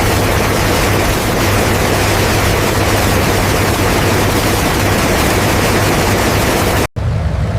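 The B-24 Liberator bomber's piston engines running, a loud steady roar with a low hum beneath it. It cuts off sharply near the end, and a quieter engine sound takes over.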